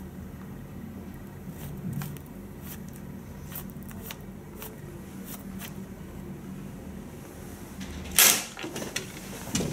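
Cassette tape being wound by hand with a pencil in its hub: faint, irregular clicks of the turning reels over a steady low hum. A short, louder rustle about eight seconds in.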